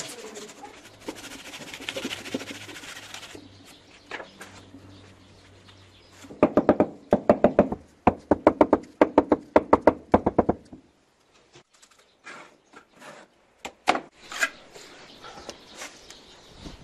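A trowel scraping mortar along the edge of a stone panel, then a fast run of loud knocks, about six a second for some four seconds, as a natural-stone facing panel is tapped down into its mortar bed, followed by a few scattered lighter knocks.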